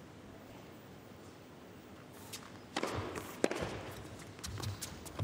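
A hushed indoor tennis arena, then a serve a little over two seconds in and the start of a rally: sharp racket strikes on the ball about once a second, with noise from play and crowd rising under them.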